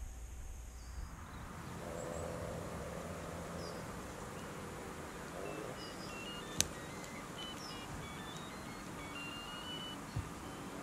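Steady outdoor background noise with faint, short high beeping tones that step up in pitch from about the middle on, and a single sharp click about halfway through.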